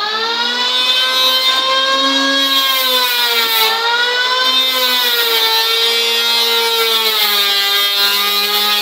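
Electric hand planer running on a wooden board, a steady high motor whine that sags slightly in pitch and recovers a few times as the blades bite into the wood.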